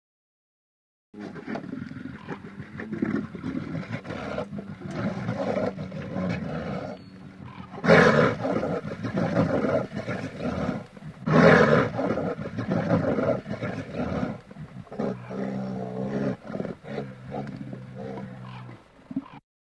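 Brown bear cubs suckling from their mother, making the rapid, buzzing nursing hum bears give while feeding. It starts about a second in and swells loudest twice, at about eight and eleven seconds.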